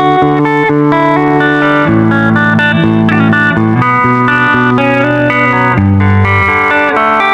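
Background music led by plucked guitar playing a busy melody over sustained bass notes.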